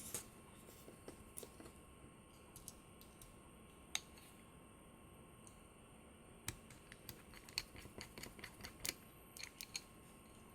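Faint, irregular small clicks and taps, a single sharp one at the start and another about four seconds in, then a quick run of about a dozen in the second half, over a faint steady high whine.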